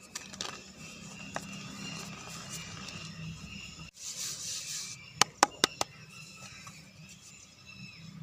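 A big lump of gym chalk crumbling under the fingers: soft crunching and crackling with a few sharp snaps. It cuts off abruptly about four seconds in, then comes a brief hissy crumble and four quick, loud cracks about five seconds in.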